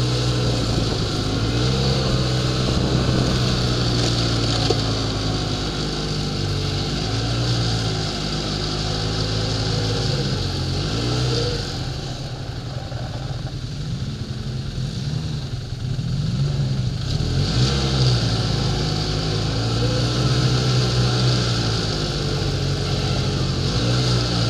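Snowmobile engine running while riding, heard close up from the machine itself, its pitch rising and falling with the throttle. It eases off and runs quieter for a few seconds around the middle, then picks up again.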